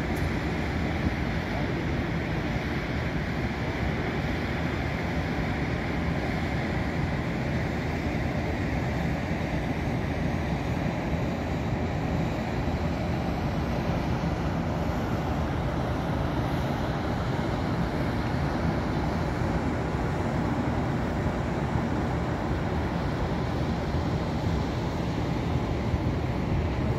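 Steady low rumble of distant city traffic mixed with wind on the microphone, with no distinct events.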